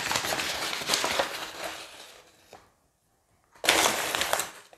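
Paper flour bag rustling and crinkling as flour is shaken out of it into a glass bowl, in two spells: a long one that fades away, then after a short pause a second, shorter one near the end.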